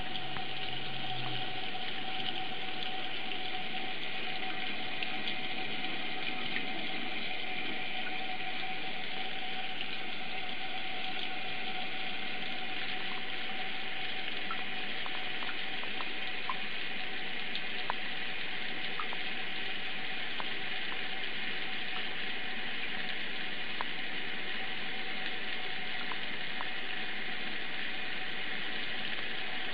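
Tap water running steadily into a bathroom sink, an even rush with a steady tone under it and a few faint ticks of drips or splashes.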